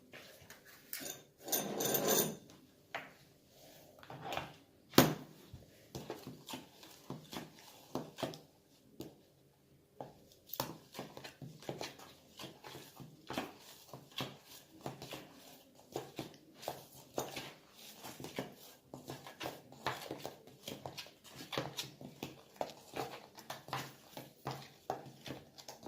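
Slime mixture of glue and glitter being stirred in a bowl: irregular clicks, taps and scrapes of the mixing utensil against the bowl, with one sharp knock about five seconds in.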